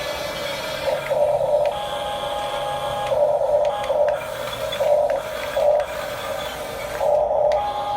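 Huina 1569 RC bulldozer's electric drive motors and plastic gearboxes whirring with a thin whine, swelling in short bursts several times as the tracks are driven on and off.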